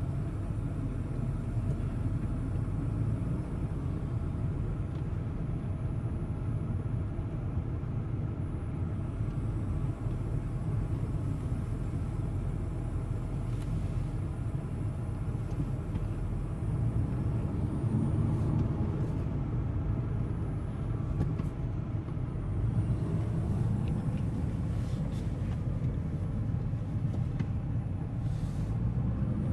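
Steady low rumble of a car's engine and road noise, heard from inside the cabin as the car moves slowly along.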